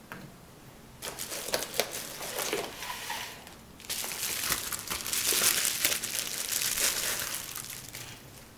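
Packaging being handled and unwrapped, crinkling and crackling in two long spells with a short pause about halfway through.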